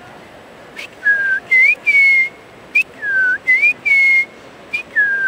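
A man whistling an imitation of a bird's alarm call. The phrase is a lower note followed by an upward slur into a higher held note, and it repeats about three times with short chips between.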